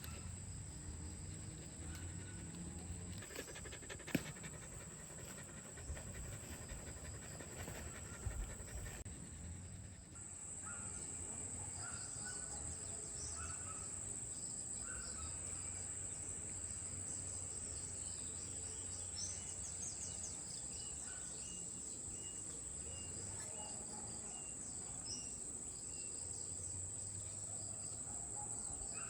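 Crickets trilling steadily on one high note, with short bird chirps scattered through. There are a few sharp knocks in the first ten seconds, and the trill grows louder about a third of the way in.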